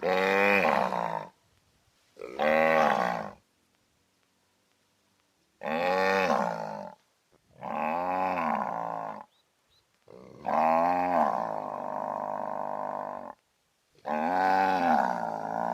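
Cow mooing loudly: six separate moos with short gaps, each rising and then falling in pitch, the fifth the longest at about three seconds.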